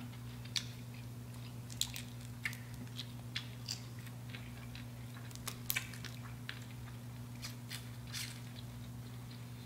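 Close-up chewing and biting of bacon-wrapped shrimp, with scattered small crunches and wet mouth clicks at irregular moments, over a steady low hum.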